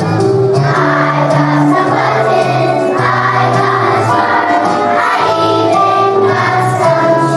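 A choir of young children singing a song together, over a musical accompaniment with steady low held notes.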